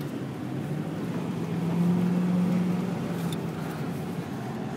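Car engine running, heard from inside the cabin, growing louder for about a second near the middle and then settling back.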